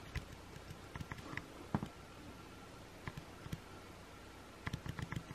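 Light taps and soft knocks of a hand handling a cardboard shoebox: a few scattered ones, then a quick cluster near the end.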